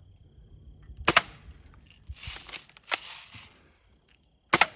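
BB gun shots at a microwave, the BBs striking and bouncing off its door glass. There is a sharp crack about a second in and a quick double crack near the end.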